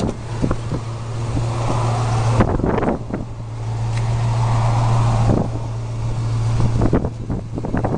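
A 1973 Camaro's engine idling steadily, with a low, even hum. A few short knocks and rustles from handling come about two and a half, five and a half and seven seconds in.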